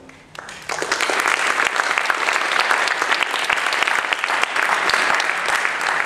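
Audience applauding: many people clapping, starting sharply about half a second in and keeping up steadily.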